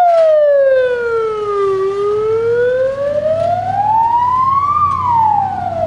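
Ambulance siren wailing: one slow fall in pitch over about two seconds, a rise over the next three, then falling again near the end, with a vehicle engine underneath.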